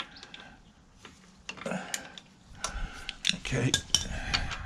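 Metal clinks and knocks of a 13mm socket wrench being fitted to and working a steel bolt on an outboard's lower engine-mount cover plate. A few light clicks, then a busier run of clinks in the second half.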